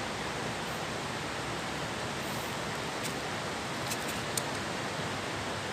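Steady rushing of flowing river water, with a few faint clicks about three and four and a half seconds in.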